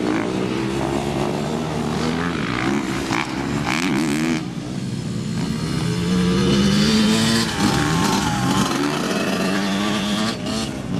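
ATV engine revving up and down as it is ridden around a dirt track, its pitch rising and falling with the throttle.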